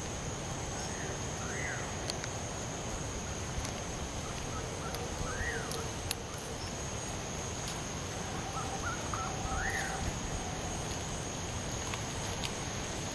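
Steady night ambience with a constant high thin whine, and three short calls that rise and fall in pitch, spaced about four seconds apart.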